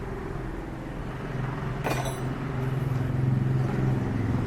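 A motor engine running steadily at idle, growing slightly louder after about three seconds, with a single metallic clink about two seconds in.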